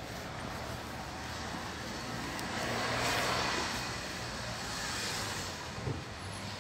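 Street traffic noise: a passing vehicle's sound swells to a peak about three seconds in and fades away over a steady low hum, with a smaller swell a couple of seconds later.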